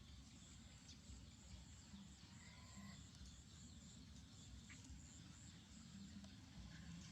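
Near silence: faint outdoor background with a low rumble, a thin steady high hiss and a brief faint chirp about two and a half seconds in.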